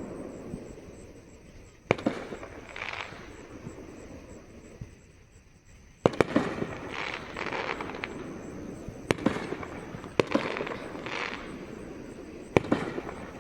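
Aerial fireworks shells bursting at a distance: a single bang about two seconds in, then after a lull a quicker run of bangs from about six seconds on, each followed by crackling.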